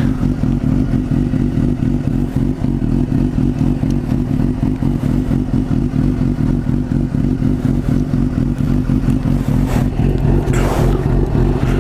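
Suzuki GSX-R 750 K4's inline-four engine idling steadily through a MIVV GP exhaust with its dB killer removed. A brief rush of noise comes near the end.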